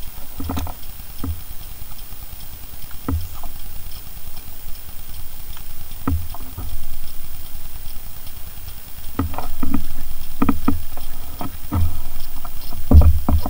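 Irregular low thumps and knocks on a bass boat's hull and deck, a few seconds apart and then bunched closer together near the end, over a faint steady hiss.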